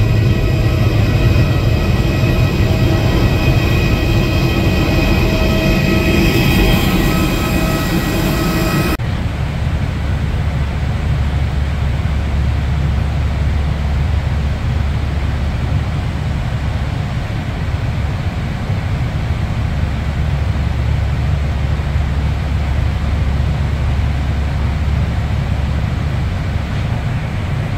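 Jet engine whine, several steady high tones over a loud rumble, heard from inside an Airbus A320 cockpit. About nine seconds in the whine cuts off abruptly, leaving a steady low rumble.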